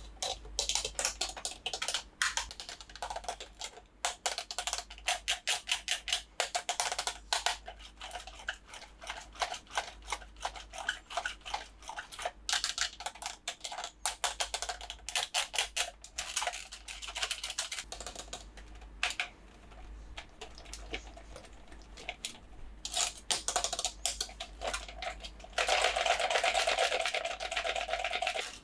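Dense, irregular clicks and taps from plastic toys and packaging being handled during an unboxing. Near the end, a few seconds of continuous rubbing or scraping.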